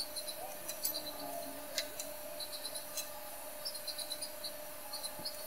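Flux crackling in small, irregular ticks as a soldering iron tip tins the interposer pads on an iPhone 11 logic board, over a faint steady hum.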